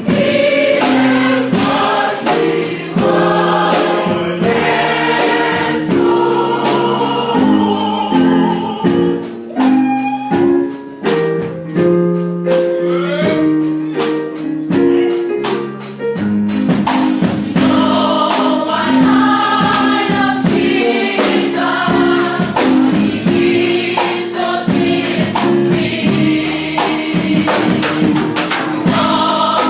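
A choir singing a worship song in harmony over instrumental accompaniment, with a steady percussive beat.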